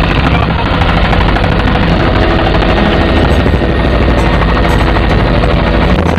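Helicopter in flight, heard from inside the cabin with the door open: loud, steady rotor and engine noise.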